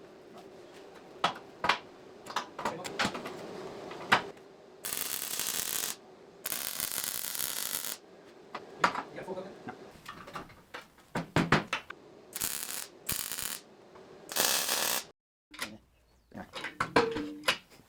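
Metalworking sounds: scattered clanks and taps of metal, broken by several short bursts of steady hissing noise lasting one to two seconds each.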